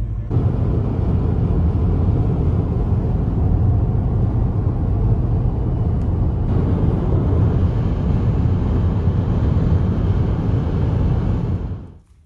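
Steady low rumble of a moving vehicle, cutting off suddenly near the end.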